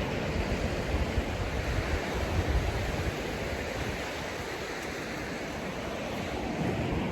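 Atlantic surf washing onto the beach in a steady wash of noise, with wind rumbling on the microphone.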